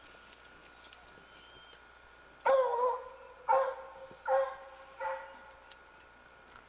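Treeing Walker hound barking four times in quick succession, each a short, loud, pitched bark, the last one weaker.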